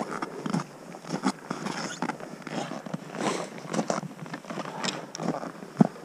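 Footsteps crunching in deep snow on an uphill hike, an uneven crunch or two each second, with a sharper knock near the end.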